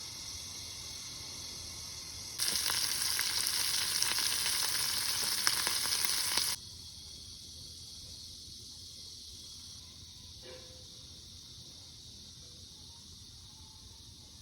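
A steady hiss that grows much louder about two and a half seconds in, holds for about four seconds, then drops back to a fainter hiss.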